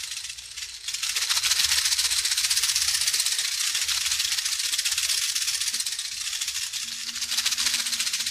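Cicadas buzzing: a dense, shrill, steady drone with a fast pulse. It dips for about the first second, then holds.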